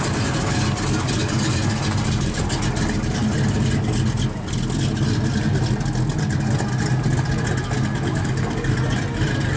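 1970 Mercury Cougar XR7 Eliminator's V8 running at low revs with a steady exhaust rumble as the car drives off slowly.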